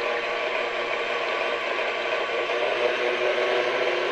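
KitchenAid Ultra Power stand mixer running steadily on low speed, its whisk beating heavy cream in a stainless steel bowl: a constant motor whir.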